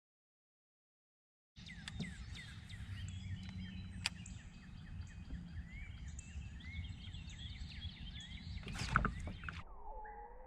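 Outdoor creek ambience: many small birds chirping over a steady low rumble, beginning after about a second and a half of dead silence. A louder burst comes near the end.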